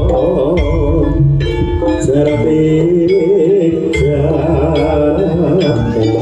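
Javanese jaranan gamelan music played live: a wavering, ornamented melody over kendang drumming and deep gong strokes.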